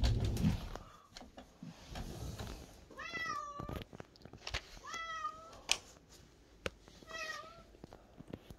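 Domestic cat meowing three times, each call about half a second to a second long, the first two slightly longer than the last. A low rumble is loudest at the start, and a couple of sharp clicks fall between the later meows.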